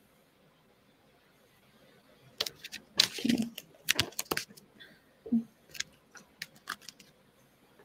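A paperback book being handled and its pages turned: a quiet cluster of sharp rustles and small clicks, starting about two and a half seconds in.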